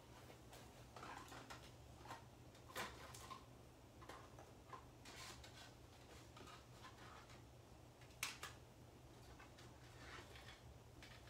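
Near silence: faint room tone with a steady low hum and scattered soft clicks or rustles, a slightly louder click about 3 seconds in and again about 8 seconds in.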